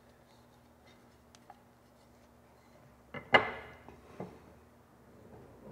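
Wooden cap set down onto the top of a wooden centerboard trunk: a pair of quick wooden knocks about three seconds in, the second one loud with a short hollow ring, then a lighter tap about a second later. Faint ticks of the cap and line being handled come before.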